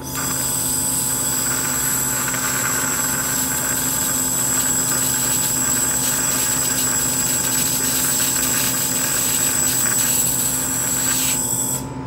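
Handheld fiber laser welder at 1000 W firing continuously into thin stainless steel sheet: a steady hiss with a high whistle as the beam burns through the sheet and fuses it again behind itself. It starts abruptly and cuts off shortly before the end.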